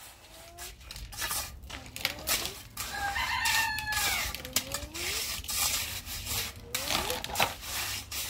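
A rooster crows once, about three seconds in, and shorter chicken calls come before and after. Short scraping and knocking strikes run under the calls.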